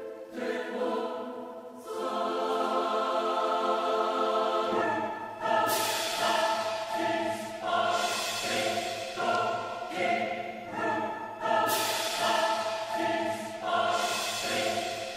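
Slow music of sustained, choir-like chords that change every second or two; a lower part joins about a third of the way in, along with swells of high shimmer.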